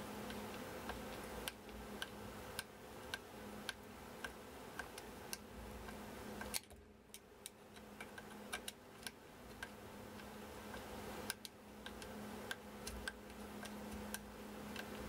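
Small screwdriver turning a screw into an engraver's aluminium frame: light, irregular clicks, about one or two a second, over a steady low hum.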